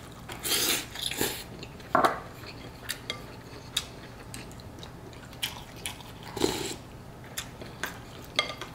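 Someone eating a bowl of pho: chopsticks and a spoon clicking and scraping against the bowl in scattered short knocks, with a few short noisy eating sounds from the mouth.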